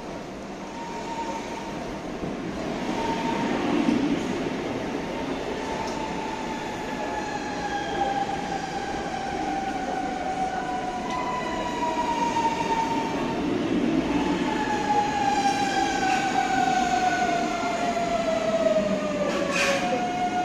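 CPTM electric multiple-unit train pulling into the platform and slowing, its wheels rumbling on the rails under an electric whine that slides slowly down in pitch as it brakes. A brief high squeal rises near the end.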